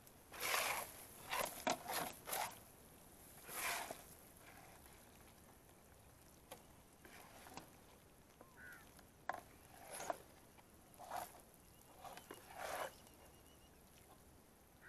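A plastic spatula scraping and scooping thick, sticky halwa out of a black kadai and slapping it onto steel plates, in irregular scrapes of about half a second to a second each, busiest in the first few seconds.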